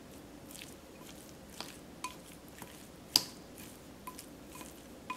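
Wooden chopsticks stirring raw minced pork filling in a ceramic bowl: soft squelching of the wet meat with scattered light clicks, and one sharper click about three seconds in.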